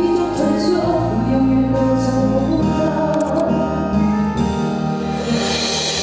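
A woman singing a Mandarin pop song into a handheld microphone, with band accompaniment of sustained bass notes and cymbals.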